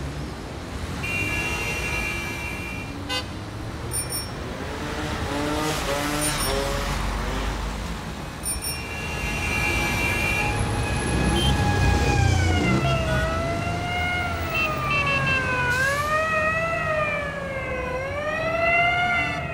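Road traffic noise with two long, steady horn blasts, then an emergency-vehicle siren that wails slowly up and down through the second half.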